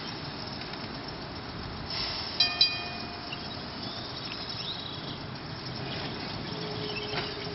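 Baltimore streetcar No. 4533 rolling along its track, a steady rolling noise. About two and a half seconds in, two sharp strikes of the car's gong ring out and die away over about a second.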